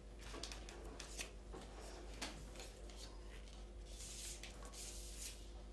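Faint taps, clicks and soft rubbing of small cardboard number cards being picked up, slid and set down on a cardboard game board, with a couple of sharper ticks in the first two seconds and longer rustles near the end.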